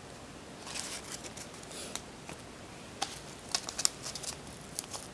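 Trading cards being handled by hand: a soft paper rustle about a second in, then scattered small sharp clicks and snaps of card stock over the last two seconds.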